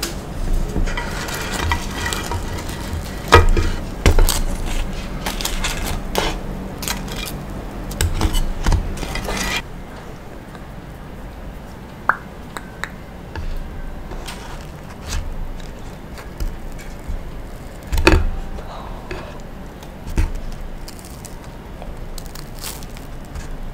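Clinks and scrapes of a frying pan and grilled mochi being handled for about the first ten seconds, then quieter, scattered taps and handling as a grilled mochi is picked up and pulled apart by hand.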